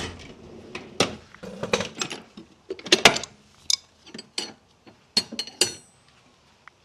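Metal hand tools clinking and knocking against each other: a run of irregular sharp clanks and taps, a few of them ringing briefly, dying away near the end.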